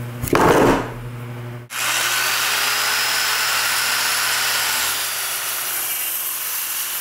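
A heavy hickory slab knocks down onto a wooden workbench with a short rough thud. From about two seconds in, a handheld circular saw cuts lengthwise through the thick hickory slab, running steadily and loudly until it cuts off suddenly at the end.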